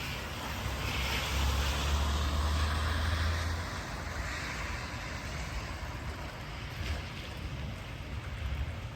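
Rain falling steadily, with a low rumble and a louder hiss that swell about a second in and die away after about four seconds.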